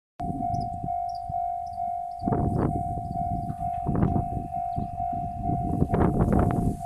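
Japanese railway level-crossing alarm sounding its electronic 'Tokai' tone, a steady single-pitched note repeating about twice a second. From about two seconds in, a low, gusting noise rises underneath it.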